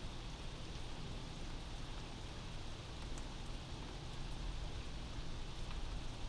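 Steady rain heard from inside a house, a constant even hiss with a few faint drop ticks. A low rumble runs underneath and grows louder near the end.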